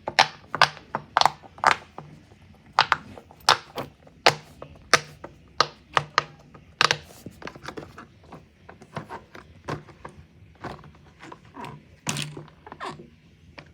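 Repeated sharp knocks or thuds, about one to two a second, loud for the first half and then softer and sparser.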